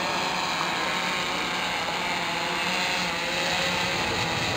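Large eight-rotor RC octocopter in flight, its motors and propellers making a steady whir with a low hum.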